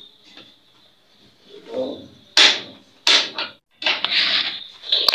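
Electric countertop blender switched on in short pulses: about four bursts in the second half, each starting sharply and dying away within about half a second.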